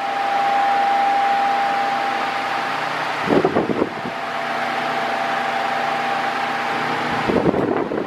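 Mondial Maxi Power 40 cm 140 W electric fan running while oscillating: a steady rush of air with a thin, steady motor whine heard above it. Twice, about three seconds in and near the end, rough wind buffeting hits the microphone as the fan sweeps round toward it.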